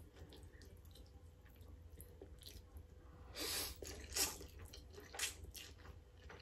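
A person slurping and chewing instant noodles: a longer, louder slurp a little past halfway, then a few shorter slurps and wet mouth sounds.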